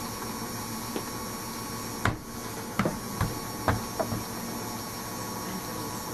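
Soba front-loading washing machine on the final 500 rpm spin of its wool programme: a steady motor and drum hum. A handful of sharp knocks come around the middle.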